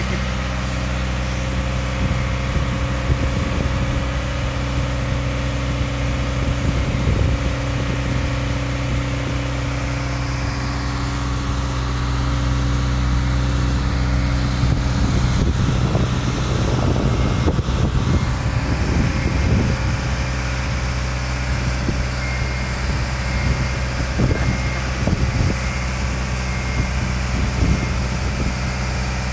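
Diesel engine of a Genie Z-135/70 articulating boom lift running steadily, working a little harder in the middle as the boom is raised. A faint high beep repeats through the second half.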